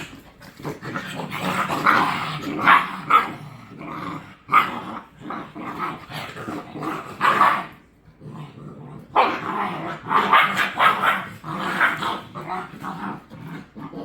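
Seven-week-old German Shepherd puppies play-fighting, growling and barking in an irregular jumble, with a short lull about eight seconds in.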